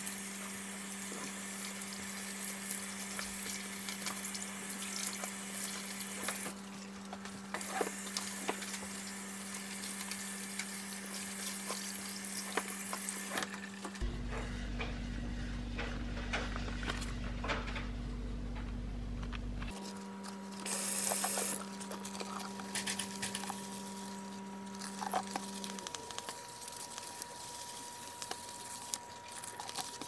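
Tap water running into a kitchen sink while a sponge scrubs the sink's surface, over a steady low hum.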